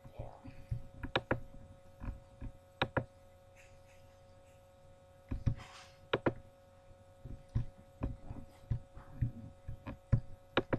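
Irregular soft knocks and sharp clicks close to the microphone, scattered through, over a steady electrical hum, with a brief hiss about six seconds in.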